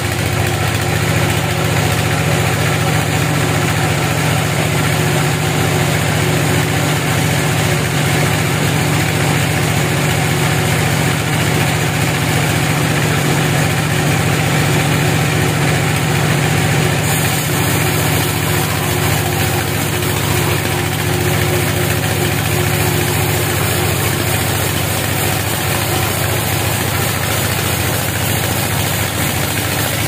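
Band sawmill running steadily, its blade cutting through a white teak (Gmelina arborea) log: a constant low machine drone with sawing noise over it.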